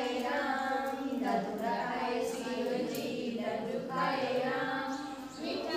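Group of women singing a Hindu devotional bhajan together, voices holding drawn-out notes.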